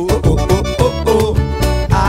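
Instrumental band music: an accordion plays the melody over a steady bass and drum beat.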